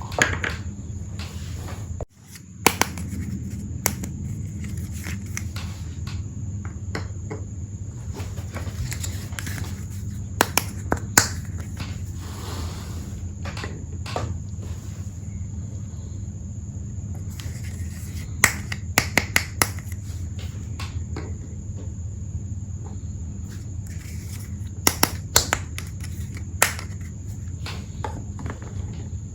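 Small plastic toy tea-set pieces being handled during unpacking: scattered sharp clicks and taps, some in quick little runs, over a steady low hum.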